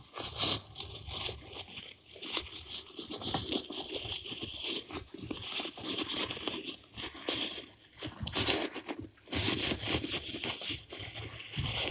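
Soundtrack of dense, irregular rustling and scraping noises with no melody or steady beat, made of many short noisy strokes that rise and fall in loudness.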